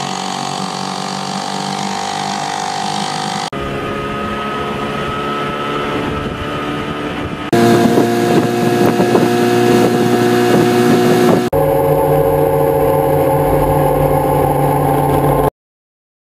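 Outboard motors running in four spliced clips of about four seconds each, every clip a steady engine tone with hard cuts between them. The third, a motor driving a boat under way, is the loudest.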